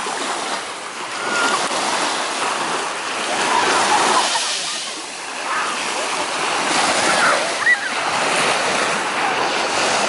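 Small sea waves breaking and washing up onto a sandy shore, the surf swelling and ebbing.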